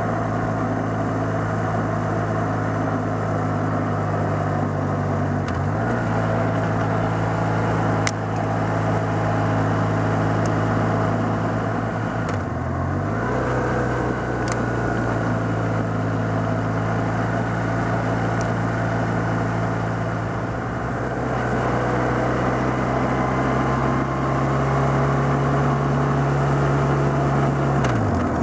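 BMW Rockster's boxer-twin engine running steadily at cruising speed under wind and road rush. The engine speed dips briefly and picks up again three times, as the rider eases the throttle or shifts on the bends.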